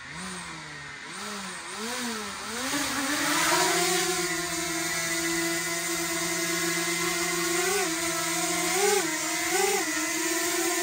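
Small quadcopter drone's propeller motors spinning up for take-off, the whine wavering and climbing in pitch for the first few seconds, then settling into a steady hover hum with three short rises in pitch near the end.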